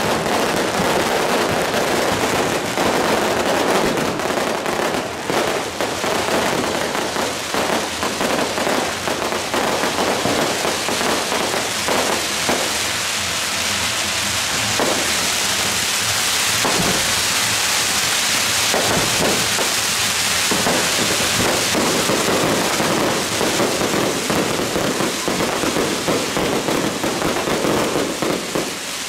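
Strings of firecrackers going off in a dense, continuous crackle of rapid bangs, thinning to more separate pops for a while in the middle.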